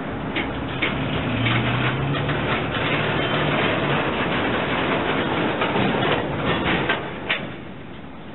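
Freight train of boxcars and tank cars rolling slowly along the track, wheels rumbling with many clicks and short squeals from the rails, over a low diesel engine hum. The noise drops away about seven and a half seconds in, just after a sharp squeal.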